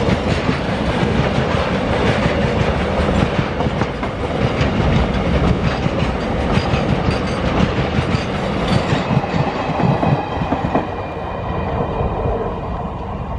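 Double-stack container wagons rolling past close by, their steel wheels clattering over the rail joints in a dense run of clicks. About eleven seconds in, the last wagon and brake van go by and the noise eases off as the train draws away.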